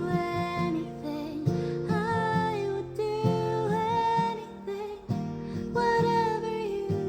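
Acoustic guitar being strummed and plucked under a woman's voice singing long, held notes that bend in pitch, with no clear words.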